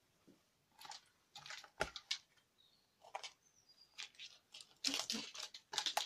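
Paper and crafting supplies being handled and shuffled about on a desk during a search for a stamp: an irregular run of short rustles, crinkles and light knocks.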